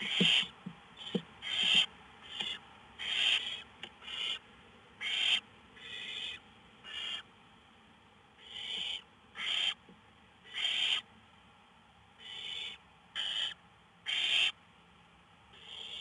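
Barn owl nestlings giving harsh hissing calls, short rasping bursts about one a second with a few brief gaps.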